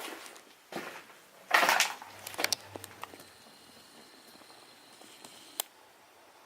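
A few scuffing, crunching footsteps or scrapes on a debris-strewn floor in the first couple of seconds, the loudest about one and a half seconds in. Then it goes quiet apart from one sharp click near the end.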